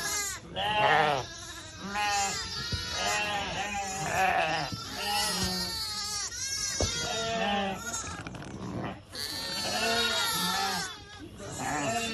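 Shetland sheep ewes and lambs bleating, many calls overlapping one after another, some low and some higher-pitched.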